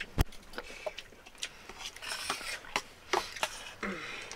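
Metal spoons clinking and scraping on stainless-steel plates as rice is served and eaten, a string of short sharp clicks with one hard knock just after the start and a stretch of scraping about two seconds in.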